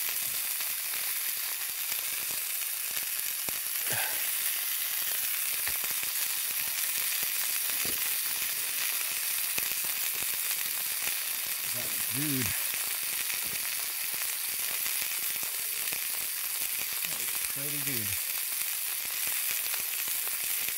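Fillet steaks sizzling in a frying pan on campfire coals: a steady frying hiss with an occasional pop. Two short voice sounds come through, one around the middle and one near the end.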